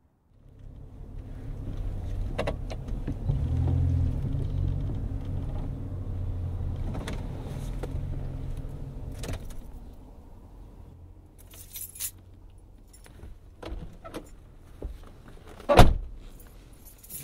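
Car sound effect: a low engine rumble swells over the first few seconds and dies away about ten seconds in, as of a car pulling up and stopping. Scattered clicks and knocks follow, the sharpest one near the end.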